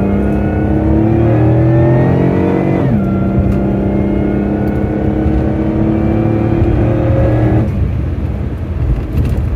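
Supercharged car engine accelerating at full throttle: the revs climb steadily, drop at a gear change about three seconds in, climb again, then fall away as the throttle is lifted near the end. It pulls cleanly with the misfiring cylinder 6 repaired.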